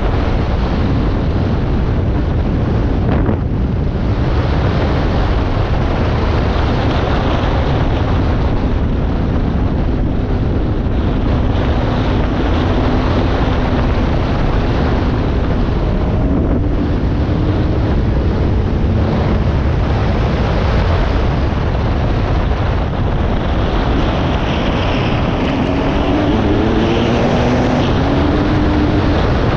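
Dirt bike engine running while riding, with heavy wind rushing over the microphone. The engine's pitch rises as it revs up, briefly about halfway through and again near the end.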